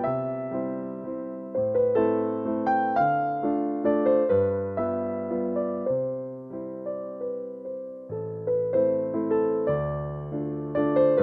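Background piano music: a gentle tune of struck notes that fade one after another over slowly changing bass notes.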